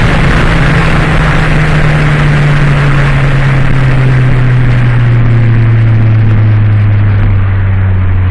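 Ford Focus 2.5 engine and exhaust running loud, its pitch falling slowly and steadily as the revs come down.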